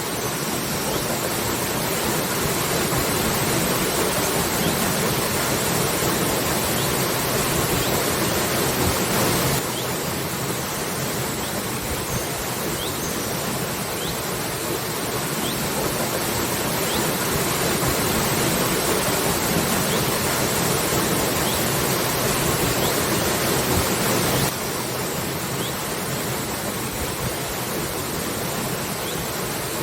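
Waterfall: a steady, even rush of falling water. The level steps down abruptly twice, about ten seconds in and again near twenty-five seconds.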